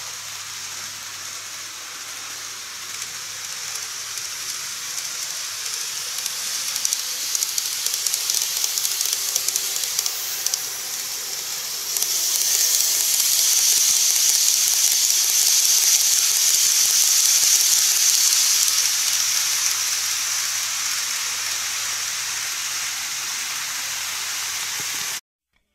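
N-gauge model train running on plastic viaduct track: a steady rolling hiss of wheels and motor that grows louder as the train approaches, is loudest as it passes close by about halfway through, then fades and cuts off suddenly near the end.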